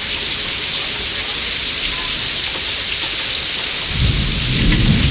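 Heavy rain pouring down in a steady loud hiss, with a low rumble of thunder coming in about four seconds in.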